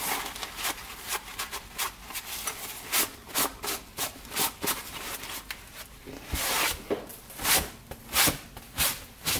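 Toolkit case wiped with a paper shop towel in gloved hands: brisk, irregular rubbing strokes, about two a second, with one longer stroke a little after six seconds in.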